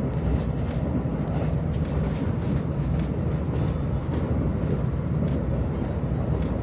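Train running along the track: a steady low rumble with faint clicks about three times a second.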